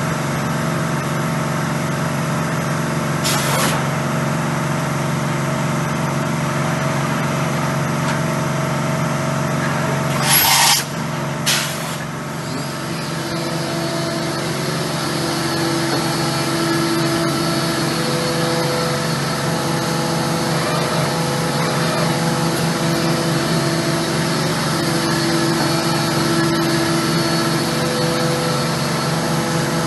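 Steady drone of a workshop air compressor. Short loud hissing bursts come about 3, 10 and 11 seconds in, and from about 13 seconds in whining tones come and go over the drone as the machining centre's spindle head travels.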